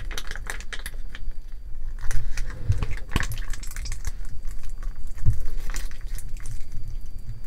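Small plastic sachet of Lifebuoy herbal gel crinkling and crackling in the fingers as it is squeezed and wrung out, in irregular clusters of sharp crackles.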